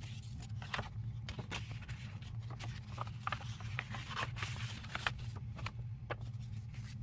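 Paper and plastic packaging rustling and crinkling in scattered short crackles as sticker sheets are handled and unwrapped, over a steady low hum.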